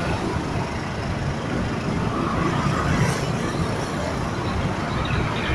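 Steady low rumble of a KRD diesel railcar's engine running, with no horn sounding.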